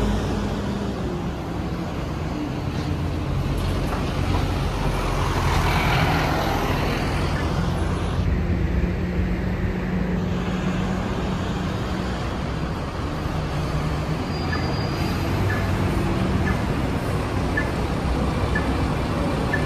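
Double-decker city buses running and driving past, a steady low engine hum with road noise that swells as one goes by. Near the end a faint tick repeats about every half second.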